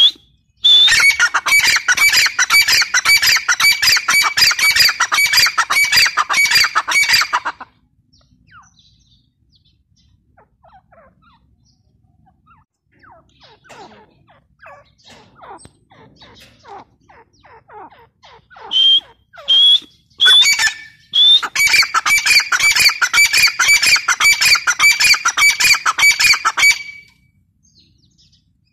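Grey francolins calling: a long run of rapid, repeated shrill squawking notes over the first seven seconds, then a quiet stretch of scattered fainter calls and a few single loud calls, then a second long rapid run in the latter half.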